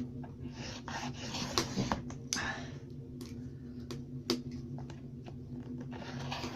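Sharpened bamboo chopstick point dragged across card, several short scraping strokes scoring lines at intervals, with a few sharp clicks as the stick is set down and lifted.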